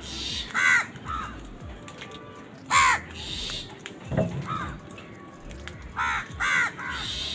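Crows cawing: about six harsh calls of varying loudness, the loudest about three seconds in and two in quick succession near the end.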